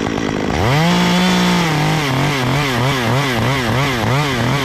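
Top-handle chainsaw revving up to full speed about half a second in and cutting through a branch on the back cut. From about two seconds in, its pitch dips and recovers about three times a second as the chain works through the wood.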